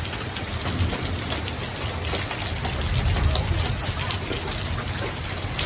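Heavy rain with hail pelting down: a steady hiss dotted with small sharp ticks of hailstones striking, under a low rumble that swells about three seconds in.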